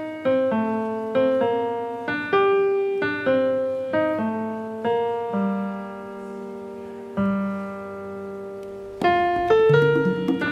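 Slow solo piano music, with notes struck one or two at a time and left to fade. In the middle come two long held chords, then a quicker run of notes about a second and a half before the end.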